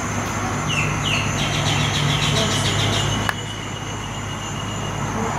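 Outdoor lakeside ambience: a steady low hum of a motor or engine under a constant high-pitched drone, with bird calls: two short downward chirps about a second in, then a quick run of chirps and a thin held whistle. A single sharp click a little after three seconds.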